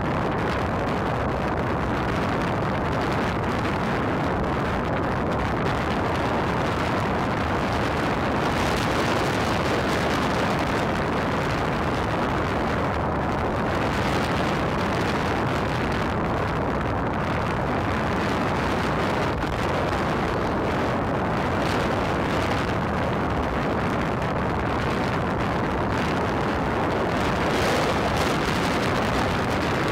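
Wind buffeting the microphone on an exposed mountainside: a steady, loud rushing noise with no breaks.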